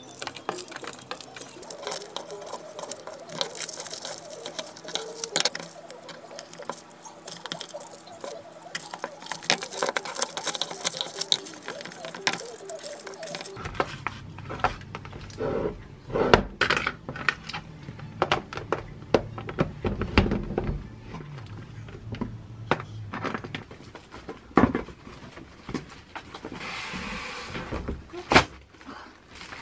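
Handling sounds of plastic food containers on a wooden cutting board: light clicks, taps and knocks as rolled bacon is packed into them. Later come louder knocks and rustling of cardboard and plastic packaging as an air fryer oven is unboxed.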